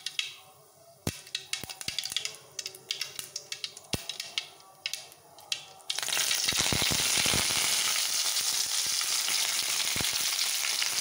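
Mustard seeds popping and crackling in hot oil. About six seconds in, fresh curry leaves hit the oil and a sudden loud, steady sizzle takes over.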